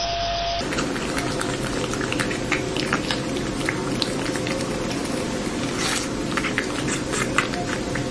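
A cat licking and chewing a wedge of watermelon close up: a run of irregular wet smacks and clicks.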